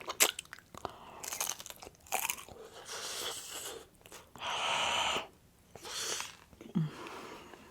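Crunching bites and chewing of hard, crispy fried rolled tacos close to the microphone, in irregular bursts.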